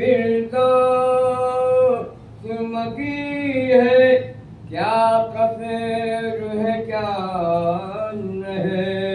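An elderly man's solo unaccompanied voice chanting a soz, a mournful Urdu elegy, in long held notes that bend and fall between phrases, breaking off briefly twice.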